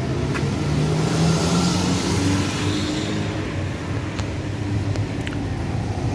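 Street traffic, with a car engine running close by.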